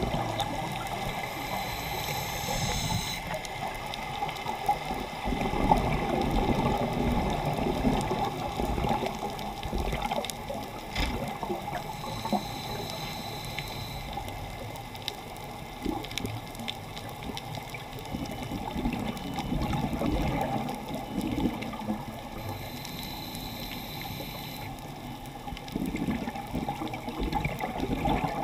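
Underwater sound of a scuba diver breathing through a regulator: bubbling exhaust and regulator hiss that come in rounds several seconds apart over a steady underwater wash, heard through a camera's waterproof housing.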